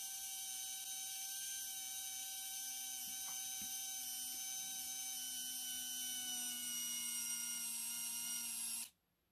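Small electric motor in a 1/14 scale RC truck running steadily with a whine, driving the threaded axle-lift mechanism, then cutting off suddenly near the end.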